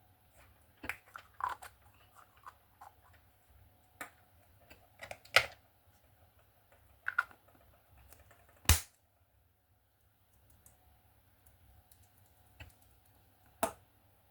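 Scattered light clicks and taps at irregular intervals, with three sharper, louder snaps: one near the middle, one a little after, and one near the end.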